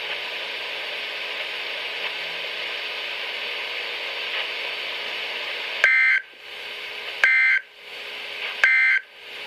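Hiss from a weather radio for about six seconds, then three short bursts of screeching Emergency Alert System SAME data tones, about a second and a half apart. These are the end-of-message code that closes the alert broadcast.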